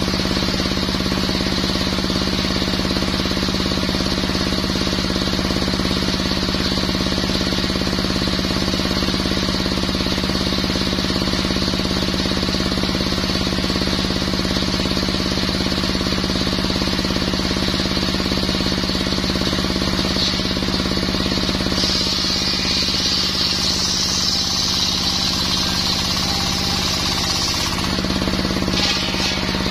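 A brush cutter's two-stroke engine, fitted with a steel circular saw blade, runs steadily at high speed. About two-thirds of the way through, a higher hissing whine joins for about six seconds as the blade saws through mahogany, then the engine note shifts briefly as the cut ends.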